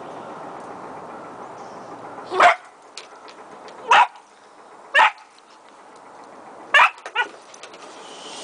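Spaniel puppy barking: five short barks, roughly a second apart, the last two close together.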